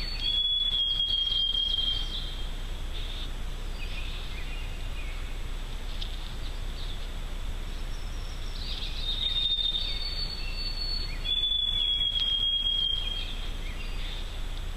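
A songbird whistling long, clear notes, each held at one pitch, a higher note followed by a lower one, twice: near the start and again past halfway. Fainter short chirps from other birds come in between, over a steady low background hiss.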